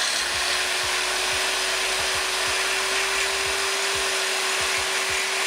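Electric power tool running at a steady speed, its motor whine climbing to one pitch as it starts, then holding, while a suspension arm's bushing is worked free from the car's subframe.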